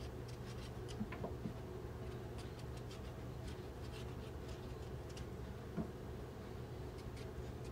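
Kitchen knife paring the skin off a green breadfruit: faint, irregular scratchy cuts and ticks, with a couple of small knocks, over a steady low hum.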